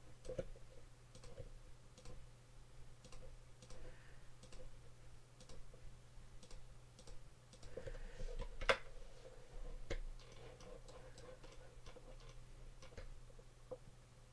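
Faint, irregular clicks of a computer mouse selecting points, one sharper click about two-thirds of the way in, over a steady low hum.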